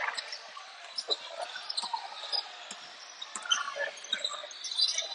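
A basketball being dribbled on a gym floor, with scattered short sharp sounds and faint background voices.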